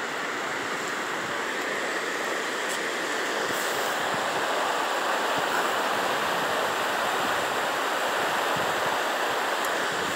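Steady rush of fast-flowing river water below a dam, an even hiss with no break.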